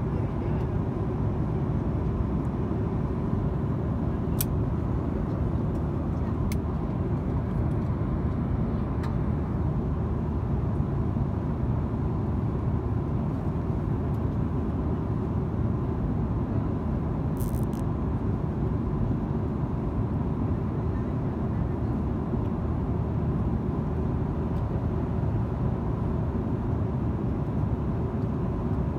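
Steady low rumble of an airliner's cabin, with a faint steady hum and a few soft clicks.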